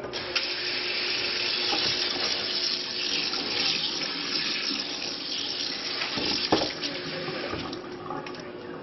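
Kitchen faucet running: a stream of water from a pull-out spray head splashing into the sink, shut off near the end. There is a single sharp knock about two-thirds of the way through.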